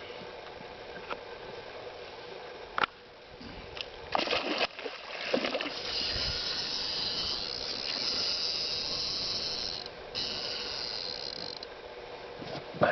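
Fishing reel running with a rapid mechanical ratcheting whir for about six seconds from midway, breaking off briefly near the end, as a large pike is played on the line. A sharp knock comes about three seconds in.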